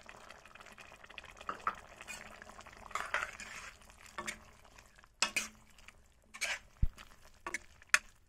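Steel spoon stirring a thick lotus-stem curry in a metal kadai: soft wet stirring and scraping, then several sharp clinks and a knock of spoon on pan in the second half.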